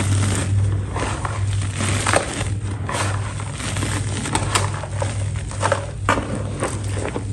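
A crisp, brittle material crumbling and crushing in irregular crunches, with several sharper snaps. A steady low hum runs underneath.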